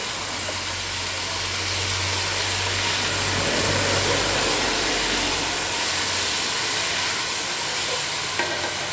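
Onion, carrot, capsicum and potato sizzling in freshly added oil in a camp oven over a gas burner, stirred with a wooden spoon; a steady hiss, with a low hum beneath it for a little over half the time.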